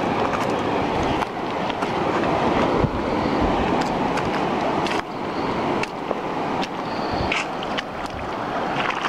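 Outdoor ambience on a shallow reef flat: a steady rush of wind on the microphone and moving seawater, with scattered small clicks and splashes.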